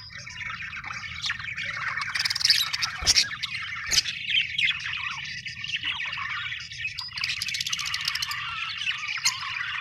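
Budgerigars chirping and chattering non-stop, several birds at once, with shrill squawks mixed in. Two short sharp clicks sound about three and four seconds in.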